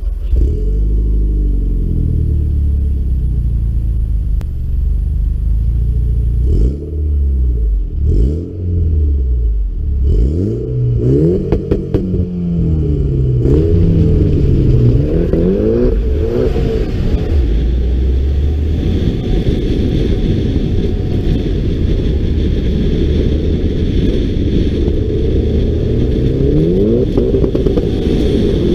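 Mitsubishi Lancer Evolution X's turbocharged 2.0-litre four-cylinder running through a MagnaFlow exhaust with a test pipe, revving and accelerating hard. Its pitch climbs and drops repeatedly in the first half. From about halfway it runs steadily under load with a rushing hiss.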